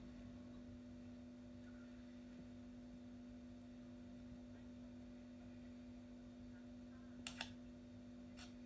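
Near silence: room tone with a steady low hum, broken by a quick double click near the end and one more faint click just after.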